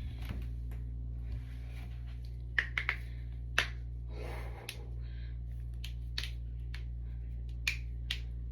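A person cracking their own joints: several sharp, short pops, some in quick succession and others spread a second or more apart, over a steady low hum.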